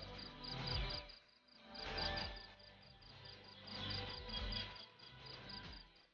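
Insects chirping: a steady, rapid high pulse at about five beats a second, over a lower background that swells and fades about every two seconds.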